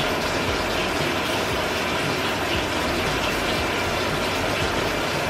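Eggs sizzling in a frying pan on an electric stove, a steady frying hiss with faint crackle while they are stirred.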